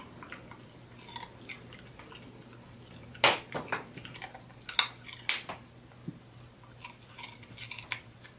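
A dog crunching a piece of raw carrot: a series of sharp, crisp crunches, loudest about three seconds in, over a faint steady hum.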